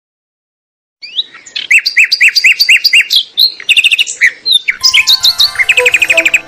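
Birds chirping: fast, repeated high chirps from several birds, starting suddenly about a second in after silence. Soft background music comes in under them near the end.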